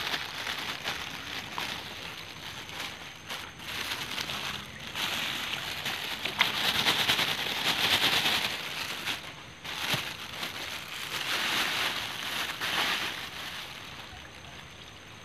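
Red tilapia splashing and sloshing at the pond surface as they take fish feed shaken from a plastic bag. The splashing comes in uneven stretches, loudest in the middle, and dies down near the end.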